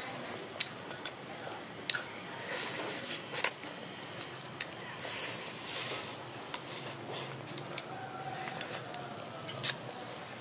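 Close-up eating sounds: slurping soup and chewing black chicken meat, with about ten scattered sharp clicks and two longer hissing slurps, one a few seconds in and one around the middle.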